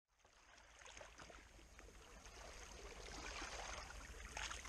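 Small sea waves lapping and splashing against shoreline rocks, faint and fading in from silence, growing slowly louder.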